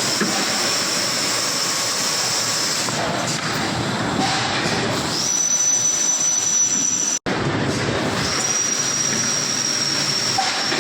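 Automatic PET blow moulding machine running: a steady mechanical din with a high, whistle-like hiss held for a few seconds at a time, twice. The sound cuts out for an instant about seven seconds in.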